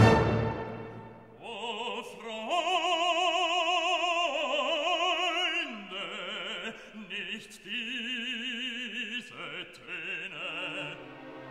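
Background classical music: a loud chord dies away over the first second, then long held notes with a wide vibrato follow, changing pitch every second or two.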